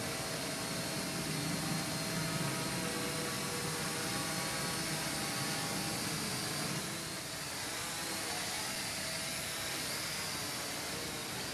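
Micro quadcopter's small electric motors and propellers whirring in flight, a steady buzzing whine that shifts a little in pitch as it moves, dipping briefly about seven seconds in.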